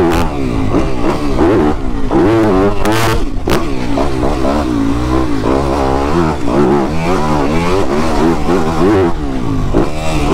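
Fantic XXF250 motocross bike's single-cylinder 250 cc four-stroke engine, through its Arrow titanium exhaust, revving up and down over and over as it is ridden hard around a track, its pitch rising and falling every second or so.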